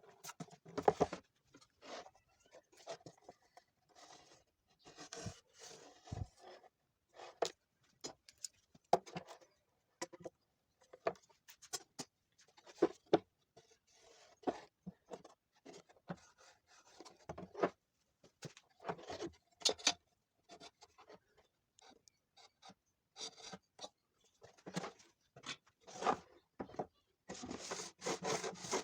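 Workpieces and tools being handled on a bench: irregular light knocks, scrapes and rubbing, with no saw running.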